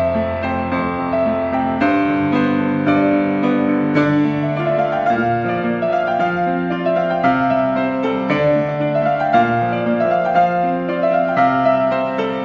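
Solo piano playing a slow, lyrical piece: held bass notes under a melody in the middle register, the notes changing about once a second.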